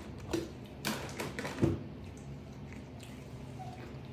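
A young macaque handling and chewing a corn cob: four or five short taps and soft squishy crunches in the first two seconds, then quieter, over a faint steady low hum.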